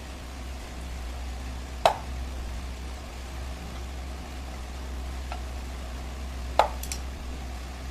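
A screwdriver working the screws of a ceiling fan motor's metal end cover gives sharp metallic clicks: two loud ones, about two seconds in and near the end, with a couple of fainter ticks between and after. A steady low hum runs underneath.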